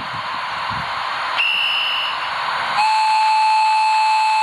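Recorded steam sound effects from a gauge 1 model locomotive's sound unit. Safety-valve hiss runs throughout, with a short high whistle about a second and a half in. A longer, lower whistle sounds from about three seconds in and cuts off suddenly.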